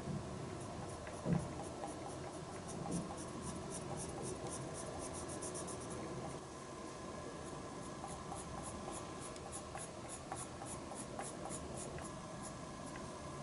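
Colored pencil scratching on paper in quick, short repeated strokes while drawing fine detail. One soft knock a little over a second in.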